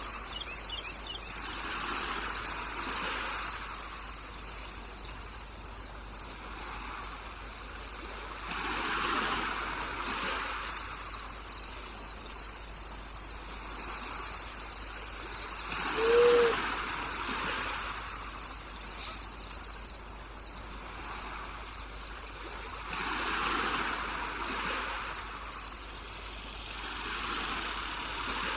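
Insect chorus: a steady high buzz with a cricket chirping in an even, regular pulse, under soft swells of noise every few seconds. About 16 seconds in comes one short, low call, the loudest sound in the stretch.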